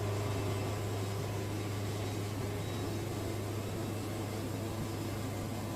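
Wood-Mizer band sawmill running steadily, its band blade sawing through a big cypress log, with a low, even hum.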